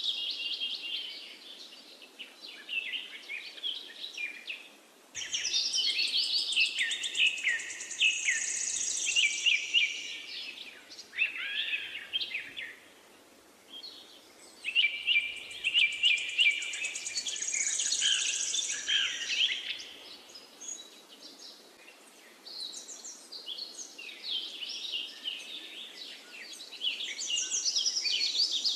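Small birds chirping and twittering in bursts of quick, high trills, several calls overlapping, with short lulls between the bursts.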